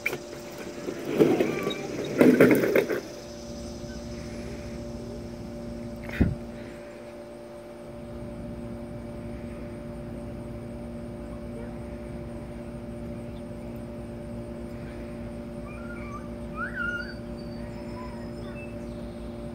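Plastic ride-on toy train car rolling down a plastic roller-coaster track: a loud rattling rumble lasting about two seconds near the start. A single knock follows a few seconds later, over a steady low hum.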